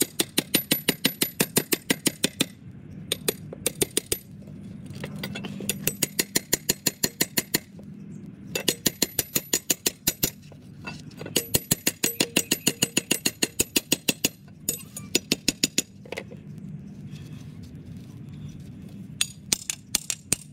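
Hammer striking a steel machete blade in rapid light taps, about six a second, in runs of a couple of seconds with short pauses between, each strike a sharp metallic clink.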